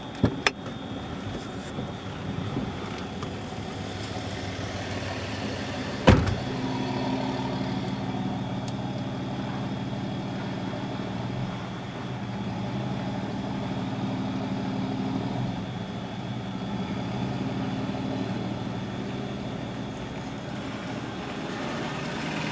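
A car door clicking open near the start and slamming shut about six seconds in, over the car's engine idling steadily.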